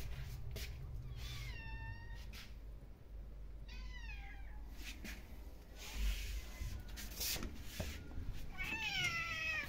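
Domestic cats meowing: three meows, each falling in pitch, about a second in, around four seconds in and near the end.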